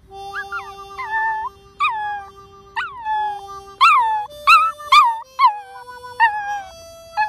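Dachshund howling along to held musical notes. About ten short howls, each jumping up and sliding down in pitch, are the loudest around the middle, over steady sustained instrument tones.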